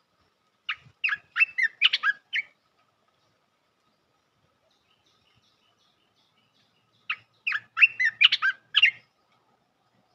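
Olive-winged bulbul singing: two short phrases of about six quick notes each, the first near the start and the second about seven seconds in.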